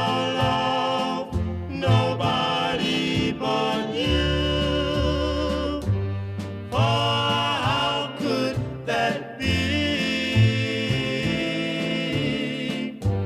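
A song with a band playing, in a passage without lyrics: a lead melody line wavering with vibrato and sliding between notes over sustained bass and backing.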